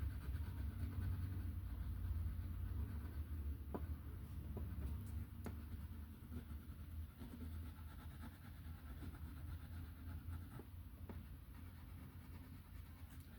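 Light green being shaded onto a coloring page: a faint, steady rubbing of the coloring tip on paper, with a few light ticks along the way.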